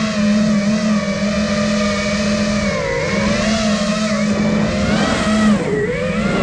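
Five-inch FPV freestyle quadcopter (iFlight Nazgul Evoque) in flight: its brushless motors and propellers make a steady multi-tone buzz whose pitch wavers up and down. Near the end the pitch drops sharply, then climbs back.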